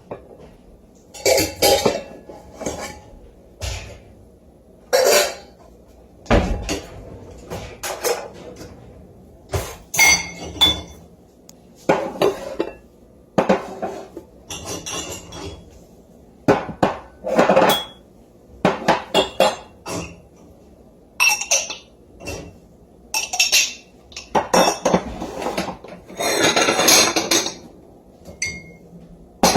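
Dishes, pots and cutlery being handled: a run of irregular clanks and clinks, some of them ringing briefly.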